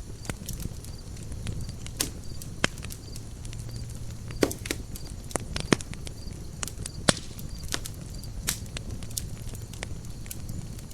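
Campfire burning: wood crackling and popping at irregular intervals over a low, steady rumble of the flames, with a few sharper, louder snaps between about two and seven seconds in.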